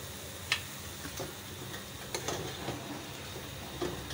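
A metal spoon clinking and scraping against a metal pot in a few scattered clicks while stirring frying chicken keema, over a faint steady sizzle.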